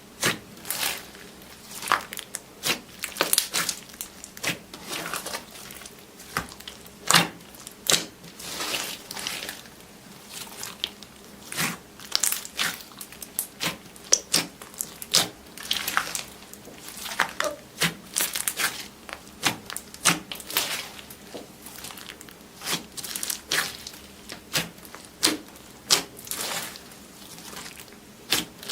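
Slime being pressed and squeezed by hand, giving a run of irregular sharp clicks and pops, several a second.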